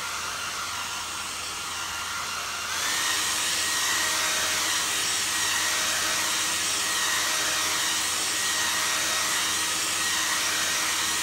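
Handheld hair dryer blowing steadily, a thin whine over the rush of air. A little under three seconds in, it steps up to a higher, louder pitch and holds there.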